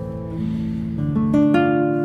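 Background music on acoustic guitar: picked notes ringing over one another and fading, with a new chord rolled in note by note about a second in.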